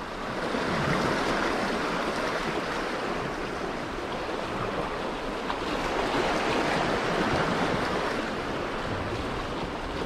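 Sea waves washing onto the beach: a steady rushing hiss with no break.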